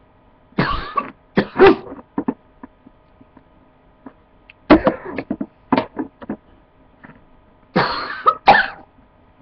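A person coughing hard in three fits of several harsh coughs each, about a second in, in the middle and near the end, set off by breathing in aerosol body spray.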